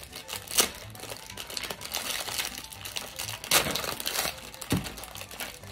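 Packaging of a Twix Caramel Centres cookie packet crinkling and crackling as it is handled and opened by hand, with a couple of sharper crackles, about half a second in and again near the middle.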